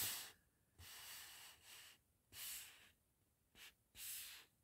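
Faint breathing close to the microphone: a few soft breaths about a second and a half apart, with near silence between.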